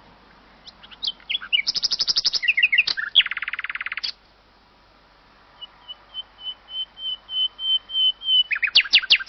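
A songbird singing: quick trills and a rapid buzzy roll, a short pause, then a run of whistled notes that swell in loudness and break into loud, sharp falling notes near the end.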